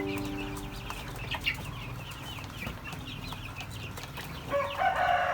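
Month-old village chicks peeping, many short high falling chirps in quick succession. About four and a half seconds in, a louder, lower chicken call begins over them.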